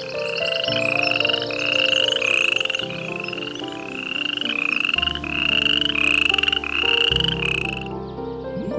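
An animal calling in a rapid series of about a dozen short, buzzy, rising calls, roughly one every 0.7 seconds, stopping shortly before the end. Background music with sustained notes and bass plays underneath.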